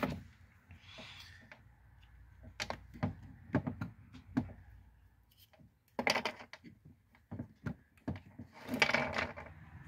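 Scattered light clicks and knocks of multimeter test probes and their leads being handled at an open distribution board, with two louder rustling spells about six and nine seconds in.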